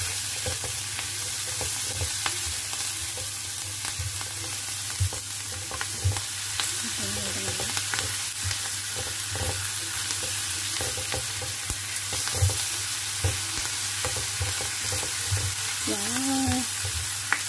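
Garlic chive flower stems and sliced smoked duck sizzling steadily as they stir-fry in a non-stick frying pan. A silicone spatula scrapes and taps against the pan at irregular moments while it stirs.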